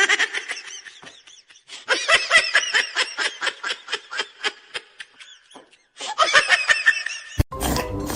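A person laughing in rapid high-pitched giggles, in three bouts with short pauses between them.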